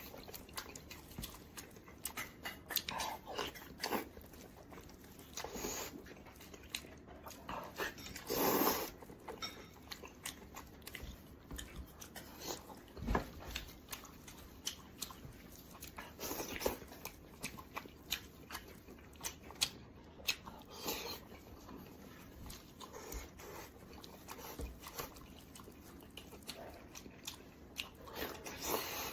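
A person chewing and biting into roasted pork head, with many short wet clicks and smacks and a few louder bursts of mouth noise.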